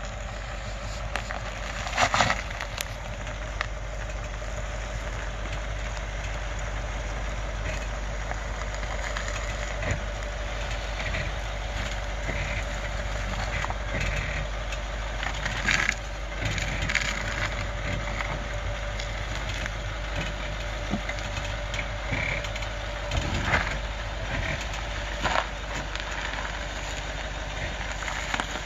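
Range Rover L322 with a 3.6 TDV8 diesel crawling slowly down stepped rock ledges, its engine running low and steady while the tyres crunch and grind over rock and loose stones. There are louder crunches or knocks about 2 seconds in and again around 16, 23 and 25 seconds, as the wheels drop off ledges.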